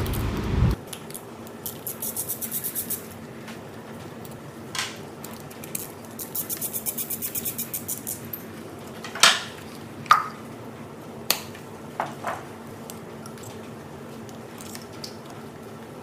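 Ratchet wrench clicking in two quick runs while undoing the bolt of an engine's ignition coil, followed by a few separate sharp clicks and knocks as the coil is worked loose.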